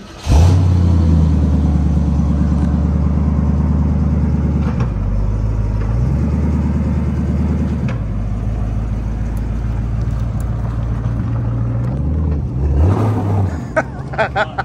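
The engine of a 1966 Ford Mustang coupe running steadily, its note shifting a few times as the car is driven off.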